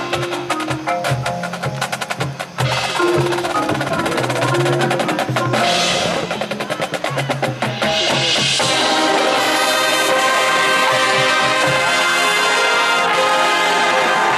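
High school marching band playing: a fast, busy percussion passage of drums and mallet percussion, then from about eight seconds in the full band with brass holds a loud sustained chord.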